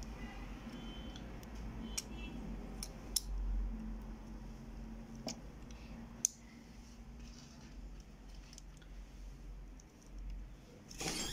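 Sharp little plastic clicks and taps, a handful spread over the first six seconds or so, as the parts of an Epson DS-1630 scanner's ADF roller and gear assembly are handled and fitted together by hand. A steady low hum runs underneath.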